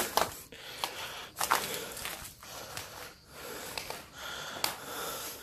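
Footsteps crunching and rustling through dry leaves and debris in a repeated, uneven rhythm, with a few sharp clicks.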